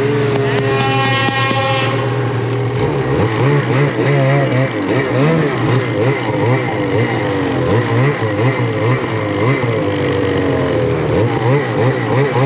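Ski-Doo snowmobile engine running under the rider, its pitch rising and falling over and over as it pushes through deep snow. A higher steady whine sounds over it for the first two seconds or so.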